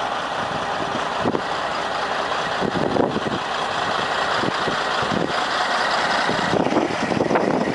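Heavy truck running, a steady engine and road noise with scattered knocks and rattles.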